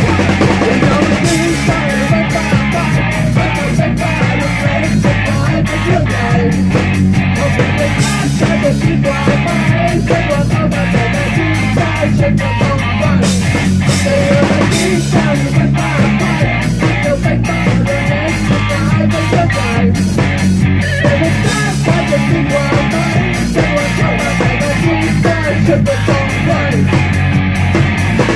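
Live rock band playing loudly: electric guitar over a drum kit keeping a steady beat, with a low line stepping between notes.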